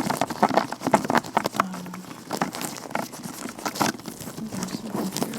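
Vinyl-latex gloved hands rubbing and handling close to the microphone: a quick, irregular run of small crinkles, crackles and taps.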